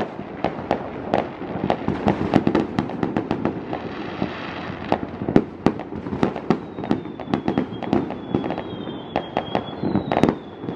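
Many fireworks going off at once: a dense, irregular run of bangs and crackles. A faint, slightly falling high whistle runs through the second half.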